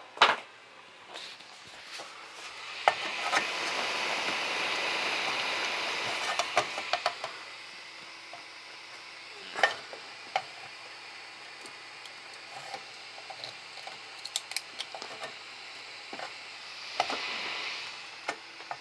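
Scraping and sharp clicks from a knife blade prying at a 3D-printed part stuck fast to the printer's bed. There is a long rasping scrape a few seconds in, scattered clicks and taps through the middle, and a second shorter scrape near the end.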